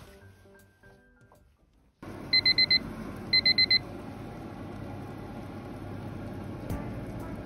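Background music fades out. Then an oven's finish signal sounds two sets of four quick, high beeps, marking the end of baking at 200°, over the steady running noise of the oven.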